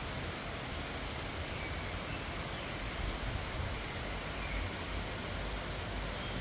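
Steady hiss of rain falling in a thunderstorm, with a low rumble underneath.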